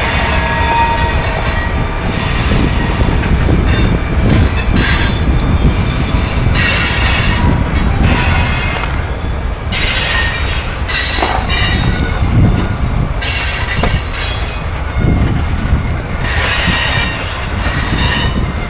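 Freight train of covered hoppers and tank cars rolling past, with a steady rumble and clatter of wheels on rail. High-pitched wheel squeal comes and goes in several spells.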